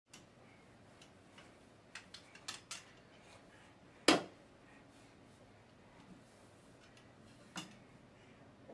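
Hard little knocks and clicks of a lamp being handled while it is dusted: a few quick taps two to three seconds in, one much louder knock about four seconds in, and another knock near the end.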